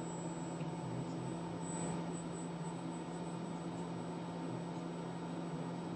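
Steady hum and hiss of a hot air rework station blowing on the logic board, softening the leftover underfill so it can be scraped away.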